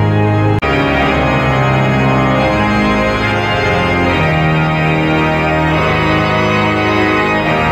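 Cathedral pipe organ playing loud, sustained chords that change every second or so, with a brief break about half a second in.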